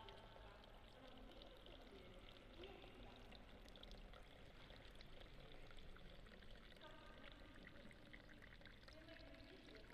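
Near silence: faint steady room tone, with a few faint distant voices.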